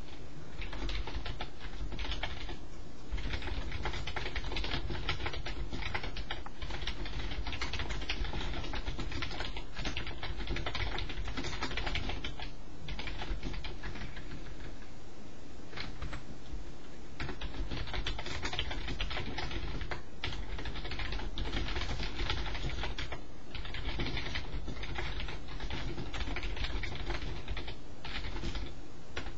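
Rapid typing on a computer keyboard: a dense run of key clicks, pausing for a few seconds about halfway through.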